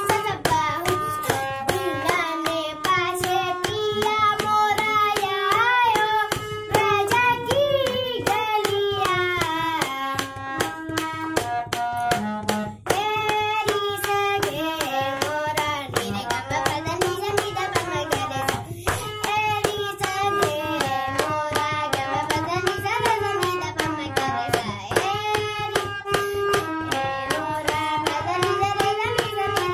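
A boy singing an Indian classical-style melody in wavering, gliding lines while playing a harmonium, its reeds holding steady notes under the voice. Fast percussive strokes run throughout.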